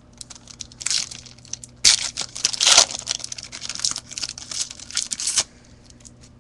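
A trading card pack's wrapper being torn open and crinkled by hand. There is a short tear about a second in, then a longer, louder stretch of tearing and crinkling from about two seconds in to past the five-second mark.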